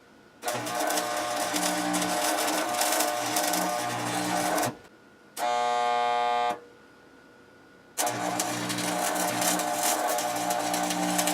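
Electric arc welding: a steady crackling buzz as stakes are welded onto steel canopy legs. The crackle breaks off twice, and between the breaks a steady pitched tone sounds for about a second.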